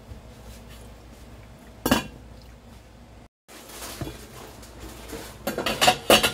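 Glass pot lid and steel cooking pot knocking and clinking: one sharp knock about two seconds in, then a quick run of clinks near the end, the loudest just before it stops.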